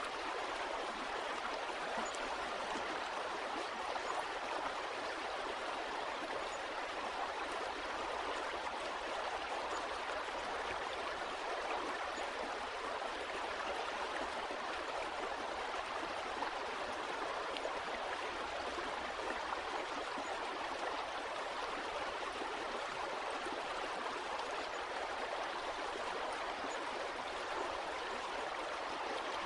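Running water of a stream, a steady, even rush with no pauses.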